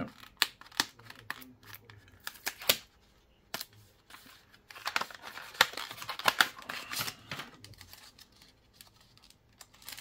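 A cardboard SSD retail box being opened by hand and the drive slid out in its clear plastic packaging: irregular rustling, scraping and sharp clicks, with brief quiet gaps about three seconds in and again near the end.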